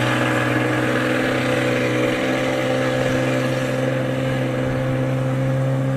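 Suzuki outboard motor running at a steady speed as it drives a passenger boat across the water: a loud, even drone that holds one pitch.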